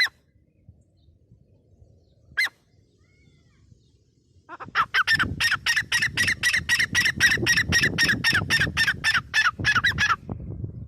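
Grey francolin calling: a short note at the start and another about two seconds later, then a fast run of sharp repeated notes, about five a second, for nearly six seconds.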